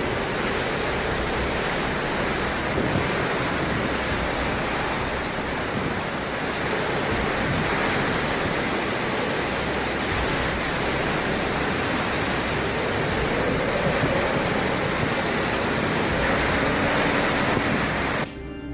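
Hurricane wind and driving rain: a loud, steady rush of noise that cuts off suddenly near the end.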